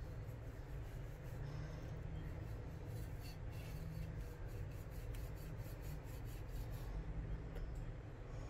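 Chef's knife scoring a whole golden snapper through its scaly skin: a run of quick scratchy strokes from about three to seven seconds in, over a steady low hum.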